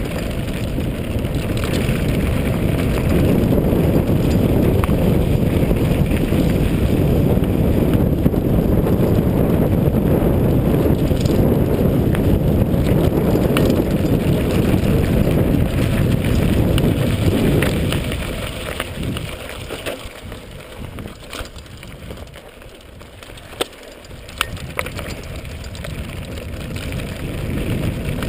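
Mountain bike descending a loose gravel track at speed: wind rushing over the microphone and the knobby tyres crunching and rattling over stones. It eases off for several seconds about two-thirds of the way through, with a few sharp clicks, then builds again near the end.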